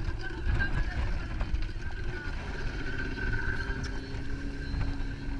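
Motor of the tow boat running steadily as it pulls the banana boat, a constant drone over a low rumble of wind and rushing water.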